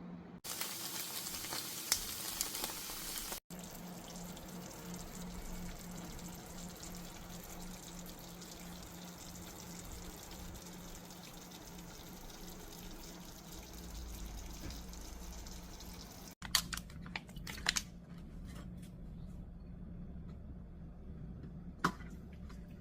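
Water running in a steady hiss, heard in separately cut stretches with a low steady hum beneath. Near the end there are a few sharp clinks and drips.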